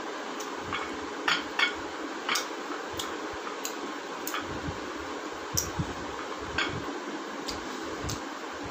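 Eating noises: a dozen or so short, scattered clicks and smacks from hands working food in ceramic bowls and from chewing, over the steady hum of a fan.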